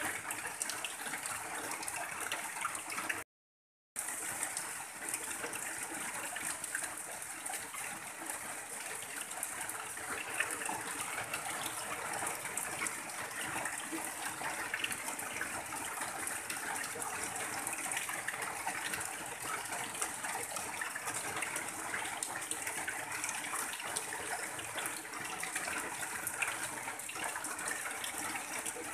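Rain falling on a tin roof, with runoff pouring off the roof edge in a steady stream, a continuous rushing, splashing hiss. The sound cuts out completely for about half a second a few seconds in.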